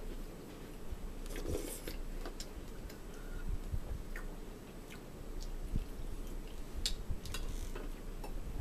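Quiet chewing and crunching of crackers, with scattered small clicks and crackles.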